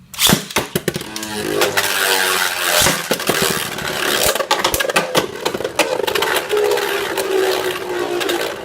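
Two Luinor L2 Nine Spiral Beyblade tops launched into a plastic stadium, then spinning and clashing: a steady whirr with repeated sharp clicks of collisions, the whirr slowly dropping in pitch as the tops lose speed.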